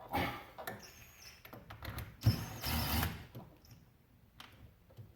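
Scraping, rustling and a sharp knock from hands working at a car's plastic interior door panel while its screws are being fitted, in a few irregular bursts.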